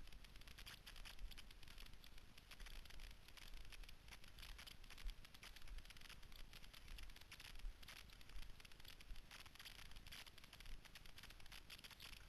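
Faint hiss and fine crackle of cross-country skis gliding downhill over packed snow, swelling and easing every few seconds, with a low rumble underneath.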